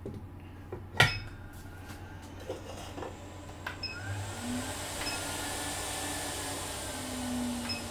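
A sharp click about a second in, then a hot air rework station starts blowing with a steady hiss, with a few short high beeps from its controls as the airflow and temperature are set. The hot air is for reflowing the freshly reballed chip's solder balls under flux.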